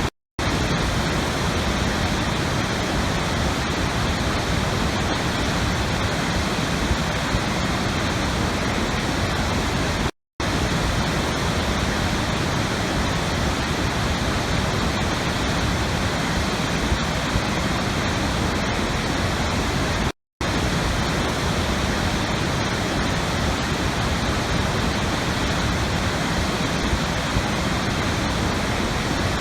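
Steady rushing water, a constant even roar of flowing water. It cuts out to silence for a split second three times, roughly every ten seconds, where the recording loops.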